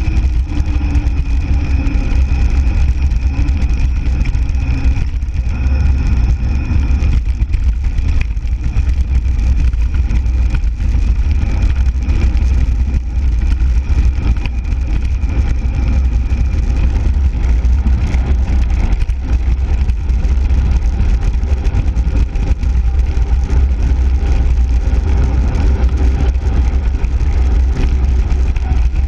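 Steady, loud low rumble of wind buffeting a bicycle-mounted action camera's microphone, mixed with the hiss of tyres rolling over rough asphalt.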